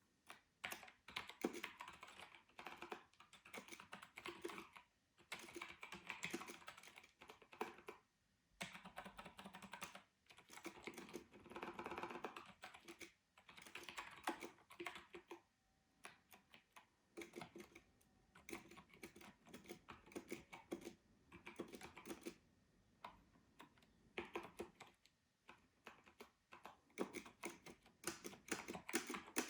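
Apple Adjustable Keyboard, a 1990s ADB keyboard, being typed on in runs of rapid key clicks with short pauses between bursts, as its freshly cleaned keys are tested.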